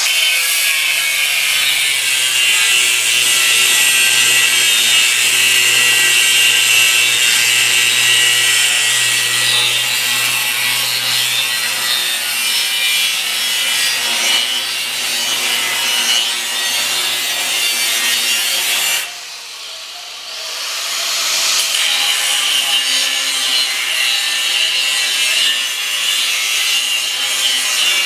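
A power tool running continuously under load while cutting. It stops briefly about nineteen seconds in, then spins back up and carries on cutting.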